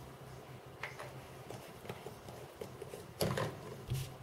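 A few light knocks and taps of small objects being handled and set down on a tabletop, the loudest about three seconds in, over a faint low hum.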